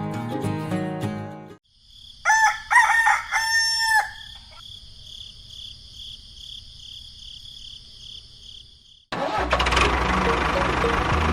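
Guitar music stops, then a rooster crows, a loud call of several rising and held notes lasting about two seconds. About nine seconds in, a loud, steady, rough noise starts suddenly.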